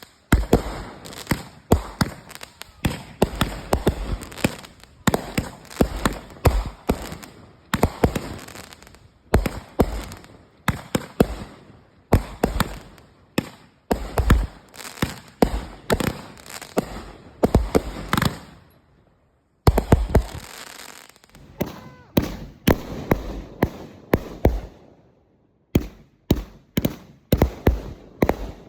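Fireworks going off in rapid succession: a long run of sharp bangs and crackles, several a second, with two brief pauses in the last third.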